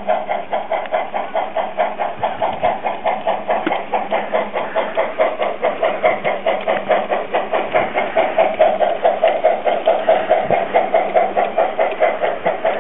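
Model steam tank locomotive on a garden railway chuffing steadily from its sound unit, about four beats a second.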